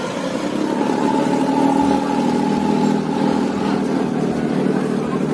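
A boat's engine running steadily, getting louder about a second in as the boat draws up to a jetty.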